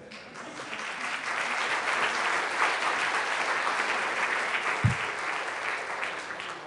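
Audience applauding. The applause swells over the first two seconds and tapers toward the end. A single low thump comes about five seconds in.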